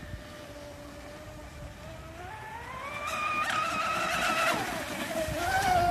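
Electric RC speedboat on 6S LiPo power running flat out across the water, its motor giving a high whine that climbs sharply in pitch about two to three seconds in, holds, then drops back about four and a half seconds in, growing louder overall.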